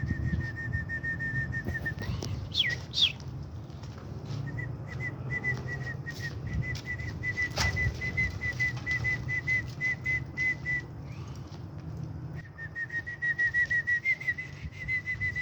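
Pigeons in a loft: a high, rapidly repeated peeping over a low rumble of cooing and shuffling. The peeping stops for about a second and a half late in the clip, and there is one sharp click about halfway through.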